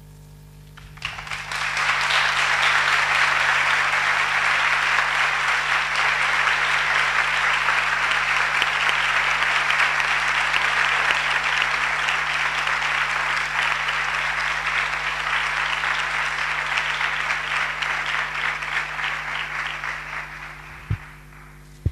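Audience applauding: the clapping starts about a second in, holds steady, and fades away near the end.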